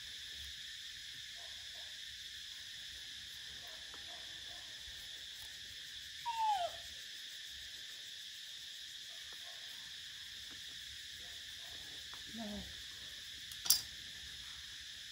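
A young macaque gives a falling coo call about six seconds in and a shorter, lower call near 12.5 s, over a steady high hiss. Near the end a single sharp knock sounds as the knife is laid down on the concrete floor.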